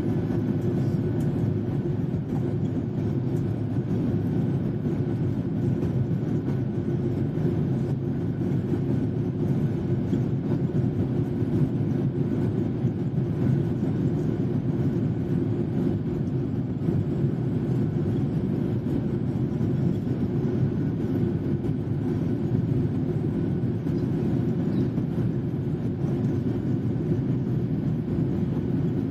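Airliner's jet engines at low taxi power, heard from inside the passenger cabin: a steady low drone with a faint, high, steady whine above it.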